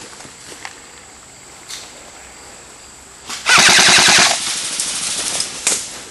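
Airsoft rifle firing a rapid full-auto burst of about a second, roughly three and a half seconds in, with fainter single pops of airsoft fire before it.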